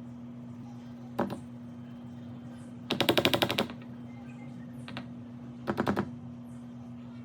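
Flour sifter sifting cocoa powder, giving quick runs of sharp metallic clicks at about a dozen a second: a single click, then a longer rattle about three seconds in, then a shorter one near the end. A steady low hum runs underneath.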